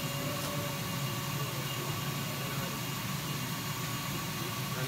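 30 W CO2 laser cutter running while it cuts a sheet of acrylic: a steady machine hum and hiss with a faint steady whine above it.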